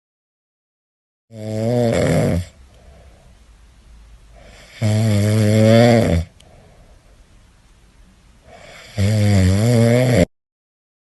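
Cat snoring: three loud, wavering snores, each a little over a second long and three to four seconds apart, with soft breathing between them.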